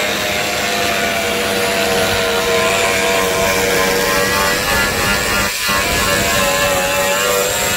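Corded angle grinder fitted with a plastic bristle stripping disc, running with a steady whine as it strips paint from a truck cab panel.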